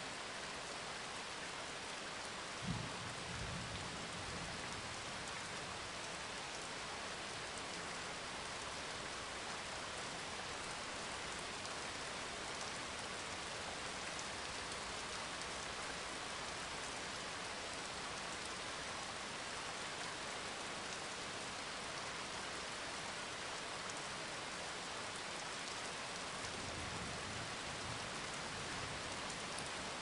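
Steady rain falling, an even hiss, with a low thump about three seconds in and a soft low rumble near the end.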